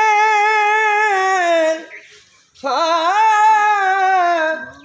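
A solo voice sings a naat unaccompanied, with melismatic phrasing. It holds one long, slightly wavering note that ends about two seconds in, pauses for a breath, and then holds a second long note that bends up at its start.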